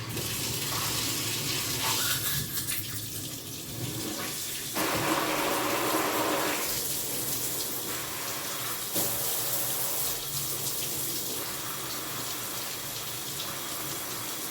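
Water spraying from a newly installed shower head, switched on at the start and then running steadily. About five seconds in it gets louder and fuller for roughly two seconds before settling back to a steady spray.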